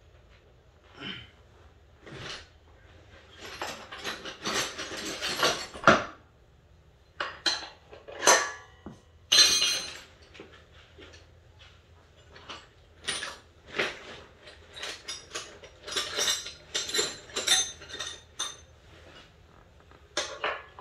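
Metal wrenches clinking and clattering as they are handled against each other and the brake hardware: a long run of sharp clinks and knocks, some ringing briefly, loudest about six seconds in and again around eight and nine seconds.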